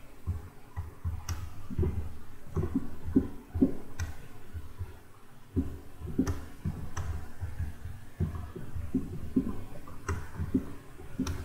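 Computer mouse in use on a desk: scattered light button clicks, about one every second or two, with low irregular knocks and rubbing as the mouse is dragged to draw lines.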